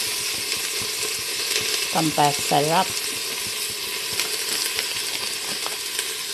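Sliced green beans and carrots sizzling in hot oil in a stainless steel pot as they are stir-fried: a steady frying hiss, with a few faint clicks later on.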